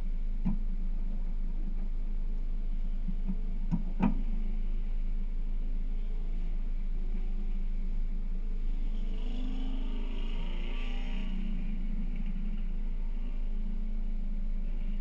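1999 Mazda Miata's four-cylinder engine idling steadily, heard from the open-top cabin. A few sharp knocks come in the first four seconds, and a hiss swells and fades about ten seconds in.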